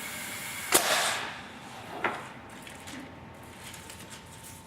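Clicker 700 press working a 1.25-inch clicker die through velcro: one sharp clack with a brief ring-out, then a lighter click about a second later.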